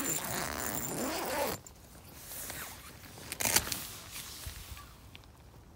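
Tent door zipper pulled open, a loud zip lasting about a second and a half. Fainter handling sounds follow, with one sharp knock about three and a half seconds in.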